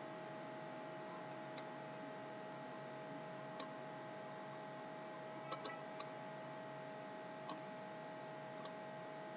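Computer mouse clicking about eight times at irregular intervals, a couple of them in quick pairs, over a faint steady electrical hum and hiss.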